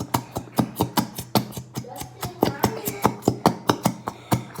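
A fast, even run of sharp taps or knocks, about five a second, like a hard utensil or object rapped against a container.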